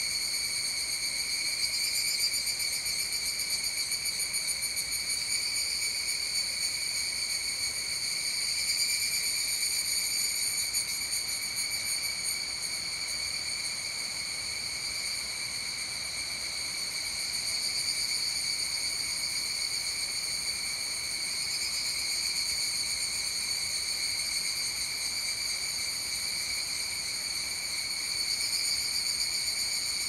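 A chorus of higurashi, evening cicadas (Tanna japonensis), calling at dusk. Their calls blend into a steady, high ringing tone that swells and eases every few seconds.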